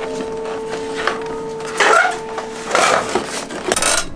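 A steady machine hum stops about two seconds in. Three short clattering knocks follow as a leather hiking boot and its sole are handled on the metal bed of a shoe sole press.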